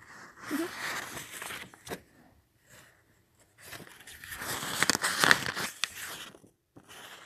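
Sketchbook paper rustling and crinkling as the pages are handled and turned, in two spells: a soft one at the start and a louder one from about three and a half seconds in, with a few small clicks.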